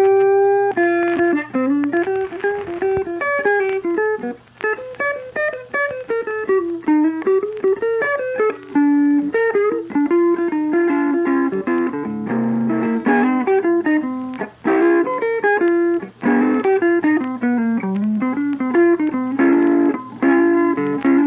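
Background music: a guitar playing a fast, busy melody.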